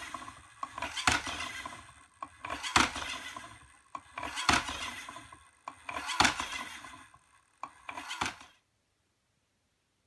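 Home-built alarm robot going off: a repeating clatter with five hard knocks spaced about one and three-quarter seconds apart and rattling between them, stopping suddenly about eight and a half seconds in.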